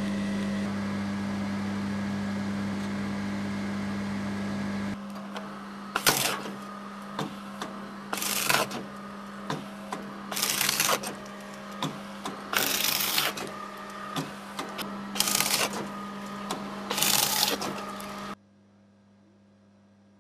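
Morsø EH electro-hydraulic mitre guillotine running: a steady hum, then about six sharp chopping cuts through wood moulding, one every two seconds or so, with small clicks between. The sound cuts off suddenly near the end.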